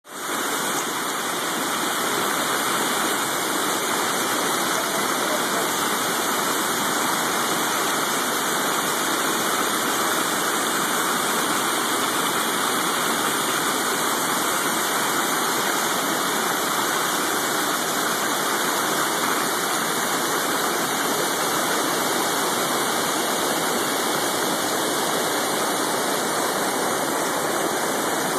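Rain-swollen creek in flood, churning white water rushing and pouring over the top of a bridge as a steady, unbroken rush of water. It fades in at the very start.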